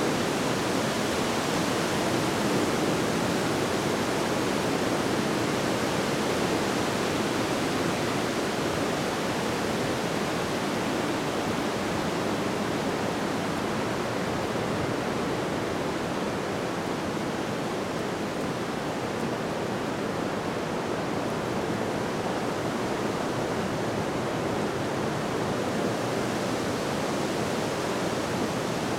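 Heavy surf breaking on a shore, heard as a steady, even rush of noise without a break.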